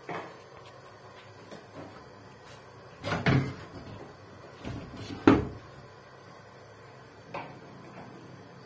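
Knocks and bumps of handling against the foil-faced insulated duct board above a ceiling: a pair of knocks about three seconds in, the loudest knock about five seconds in, and a lighter one near the end.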